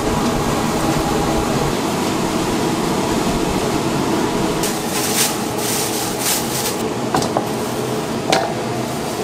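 Steady rushing noise of a fried-chicken cooking station, with several bursts of hissing about five seconds in and a few sharp clinks near the end.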